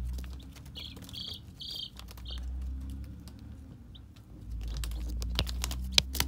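Day-old chicks peeping, a handful of short high peeps in the first couple of seconds, over a low rumble. A couple of sharp taps come near the end.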